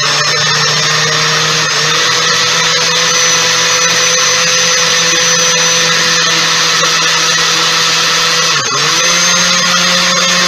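Countertop blender motor running steadily while blending a liquid pie filling with chopped nuts. Its pitch steps up slightly about two seconds in and dips briefly near the end before recovering.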